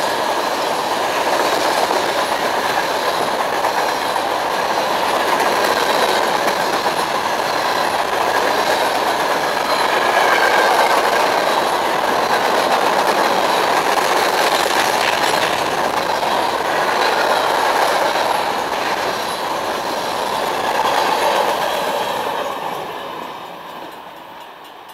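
Freight train's tank cars and covered hopper cars rolling past at speed: a steady rush and clatter of steel wheels on the rails with a faint high wheel squeal, dying away near the end.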